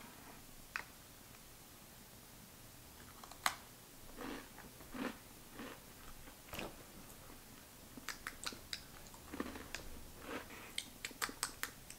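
Faint crunching and chewing of a crunchy Simple Mills chocolate chip cookie: scattered short crackles and clicks, coming more often in the last few seconds.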